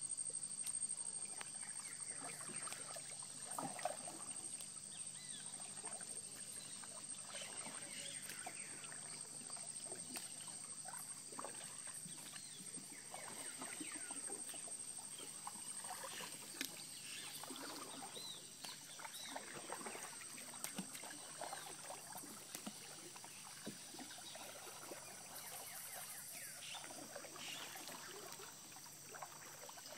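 A wooden paddle dipping and pulling through still water, with soft splashes and drips as a dugout canoe is rowed. A steady high insect buzz runs underneath.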